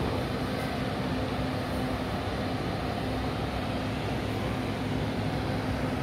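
Steady city background hum of traffic, with a faint low tone that fades in and out.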